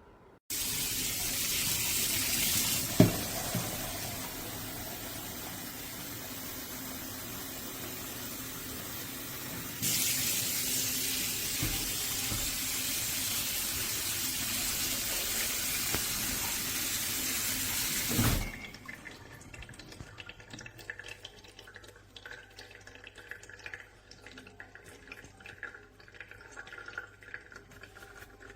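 Water running from a tap, with a steady rush that grows louder about ten seconds in and stops abruptly after about eighteen seconds. A knock comes a few seconds in, and faint light clicks follow the shut-off.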